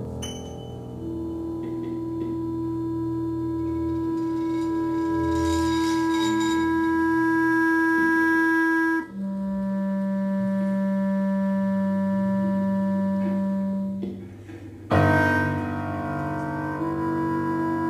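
Contemporary chamber music for clarinet, piano, vibraphone and electronics: long, steady held tones, the pitch dropping to a lower held note about nine seconds in, then a sudden loud chord with many pitches ringing on about fifteen seconds in.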